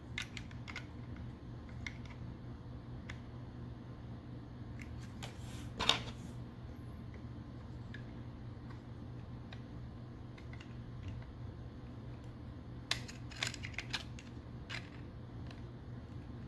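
Small plastic clicks and taps as plastic weapon accessories are fitted onto the back of a Transformers action figure, with a sharper click about six seconds in and a quick run of clicks about thirteen seconds in. A low steady hum underlies it.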